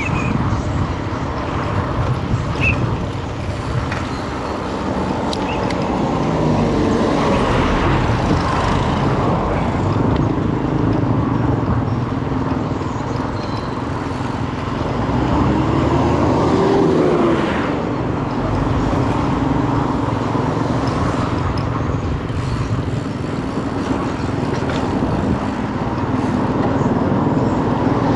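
Motor vehicle engine running with continuous road noise, the engine pitch rising and falling once about halfway through.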